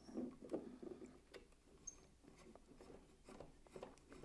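Near silence with faint small clicks and rubbing from hands working a coax connector onto an SO-239 fitting on a magnetic loop antenna's tuner box.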